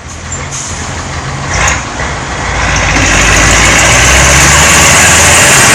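Kirovets K-700 tractor's diesel engine running hard, a low steady engine note under a loud rushing noise that swells about three seconds in and holds.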